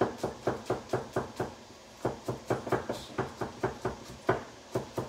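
Kitchen knife chopping on a wooden cutting board: quick, even knocks, about five a second, with a short pause about two seconds in.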